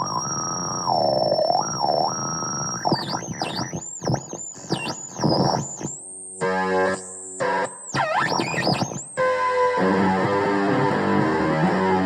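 Electric guitar through a Supersonic Fuzz Gun–style fuzz pedal, making warbling, swooping synth-like squeals that glide up and down in pitch and cut in and out. About nine seconds in it settles into a thick, steady fuzzed note.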